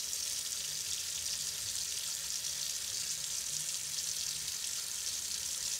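Tap water running steadily into a stainless steel sink and spreading around a pot standing in it: an even hiss with no knocks.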